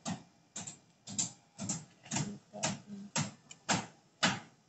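Newborn kittens suckling at the mother cat's teats: a rhythmic run of short wet smacking clicks, about two a second.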